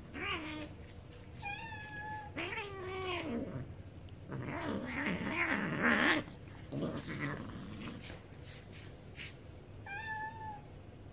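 Kittens play-fighting and crying out: a string of short meows, with one longer, rougher yowl about four to six seconds in that is the loudest.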